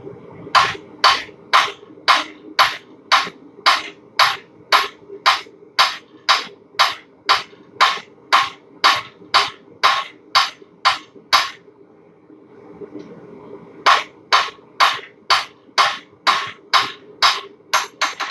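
Blacksmith's hand hammer striking hot steel bar stock on an anvil, drawing down and squaring up one end: a steady run of ringing blows about two a second, a pause of a couple of seconds, then a second run. A steady low hum runs underneath.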